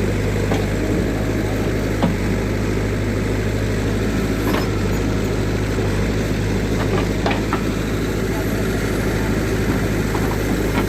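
JCB digging machine's diesel engine running steadily, with a few short clicks over it.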